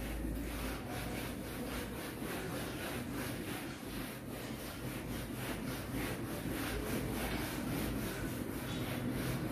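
Whiteboard eraser rubbing marker writing off a whiteboard in a steady run of back-and-forth strokes.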